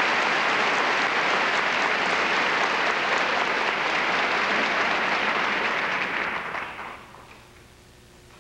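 Theatre audience applauding, the clapping dying away about seven seconds in. A faint steady tone is left afterwards.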